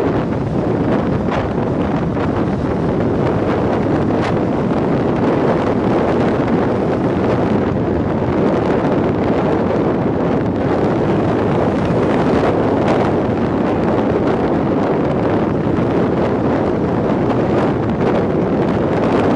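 Steady wind rushing over the microphone of a moving motorcycle, with road and engine noise underneath.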